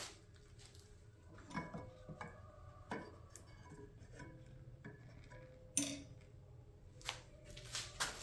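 Faint, scattered clinks and knocks of metal hand tools and small parts being handled, about six in all, the loudest about six seconds in.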